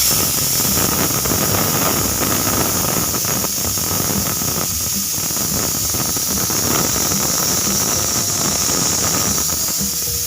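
Pressure cooker whistle blowing: steam forced out under the weight valve in a loud, steady hiss with a high whistle tone, cutting in suddenly and holding on. The whistle signals that full pressure has built up inside the cooker.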